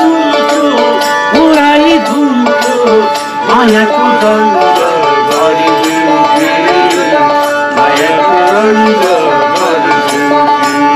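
Two Nepali sarangis, small bowed folk fiddles, playing a folk tune together while one of the players sings.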